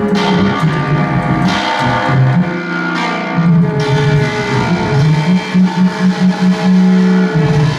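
Free-improvised live music from baritone saxophone, a guitar played flat on the lap through effects, and keyboard. A low note stutters in quick repeated pulses in the second half, then is held for about a second.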